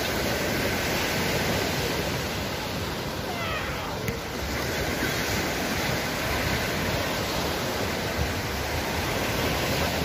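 Small sea waves breaking and washing up a sandy beach, a steady rush of surf.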